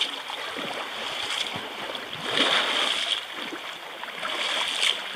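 River water splashing and lapping as a person scoops and splashes water over an elephant lying in the shallows, with a louder surge of splashing about two and a half seconds in.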